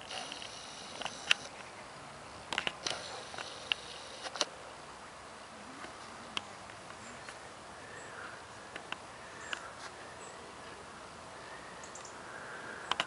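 Insects chirping in short high buzzy bursts over a faint steady outdoor hiss, with scattered sharp ticks throughout.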